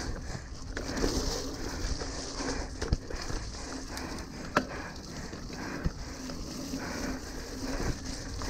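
Mountain bike riding down muddy dirt singletrack: steady tyre noise on the wet trail and the bike rattling over bumps, with sharp knocks about three and four and a half seconds in.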